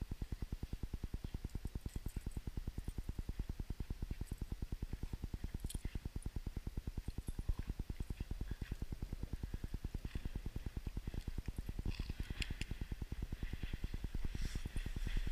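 Two dogs playing rough in deep snow, with faint scuffles and crunches that thicken near the end, over a steady, rapid low pulsing.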